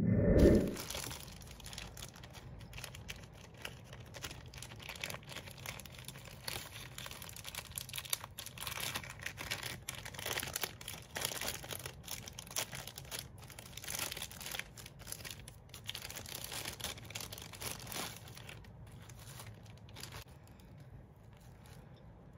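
Packaging being handled and unwrapped: a long run of crinkling of wrapping material with some tearing, opening with a loud thud and thinning out near the end.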